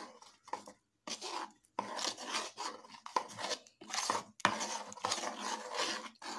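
Metal spoon stirring a thin, wet batter in a metal bowl, scraping against the bowl's sides and bottom in a run of quick, irregular strokes.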